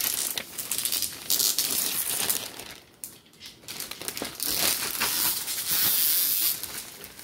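Packaging crinkling and rustling in irregular bursts as it is handled, loudest in the second half.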